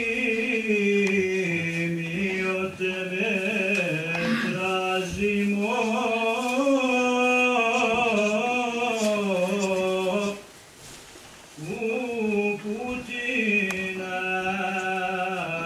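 A single male voice chanting an Islamic devotional recitation, drawing out long, ornamented notes. It breaks off for a breath about ten seconds in, then carries on.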